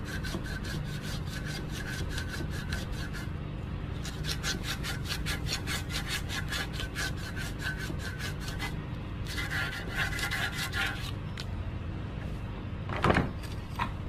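Hand-sanding an 8 mm stainless steel rod clamped in a vise: sandpaper rasping back and forth at about five strokes a second, in three runs with short pauses. Near the end there is one brief, louder scrape.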